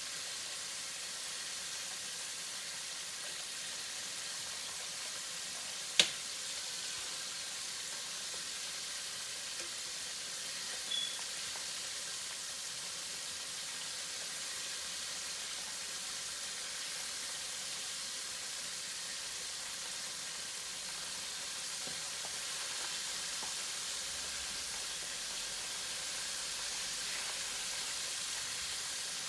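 Chicken wings frying with a steady sizzle. A single sharp click about six seconds in.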